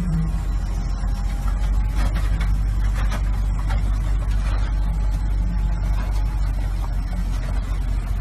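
A heavy diesel engine runs with a steady low rumble while dirt pours from an excavator bucket into a pickup bed, adding scattered rattling about two to three seconds in.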